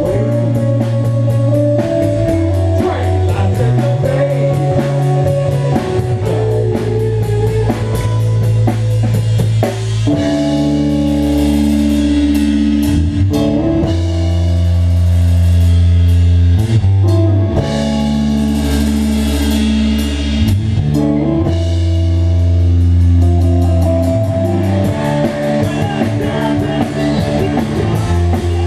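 A rock band playing together: electric bass, electric guitar and a drum kit, with strong low bass notes under steady cymbal strikes. The song moves into a new section about ten seconds in.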